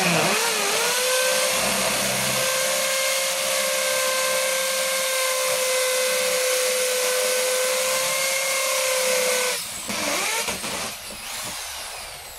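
Total 850 W corded hammer drill in hammer mode, boring an 8 mm masonry bit into concrete: a loud, steady whine with hammering noise. It stops about nine and a half seconds in, runs briefly again, then winds down.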